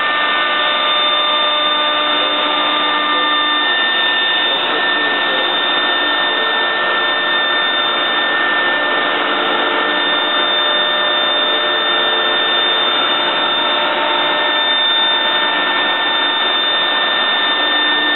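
Techno Isel CNC router's spindle running and cutting MDF, with dust-collection suction at the bit, making a loud, steady whine with several held tones.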